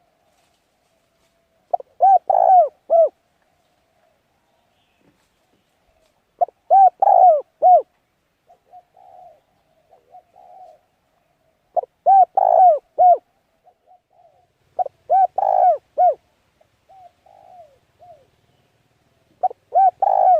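A bird calling in five short phrases of four or five low, arched notes each, a few seconds apart, with softer, scattered notes between the phrases.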